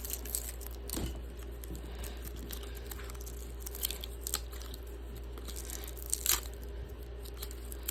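Hard plastic case parts being handled and pried apart: scattered sharp clicks and scrapes with light crinkling.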